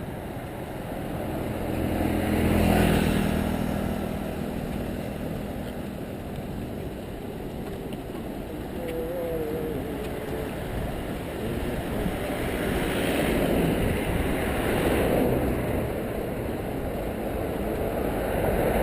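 Steady rushing of wind on the microphone during a ride, with a motor vehicle's engine passing, loudest about three seconds in.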